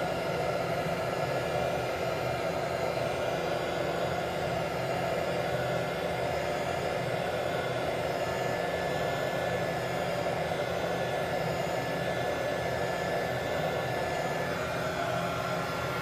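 Small 300-watt hot air gun running steadily, its fan blowing with an even whir while it shrinks heat-shrink tubing over a wire joint.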